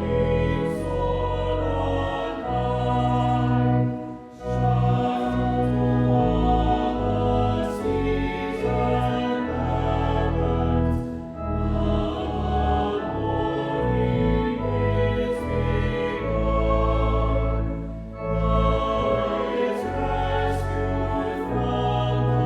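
Choir singing a slow sacred hymn over sustained low accompanying notes. It goes in long phrases of about seven seconds, each ending in a brief pause.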